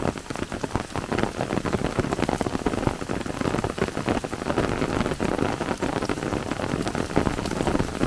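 Steady rain: a dense, continuous patter of drops striking an open umbrella held just overhead.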